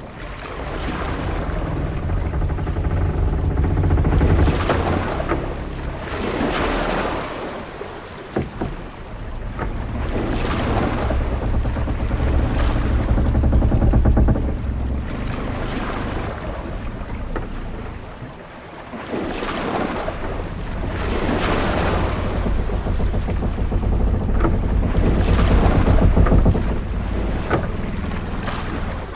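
Ship-at-sea ambience: waves washing against a ship's hull with wind, a deep rumble swelling and easing in long surges, and a splash of spray every couple of seconds.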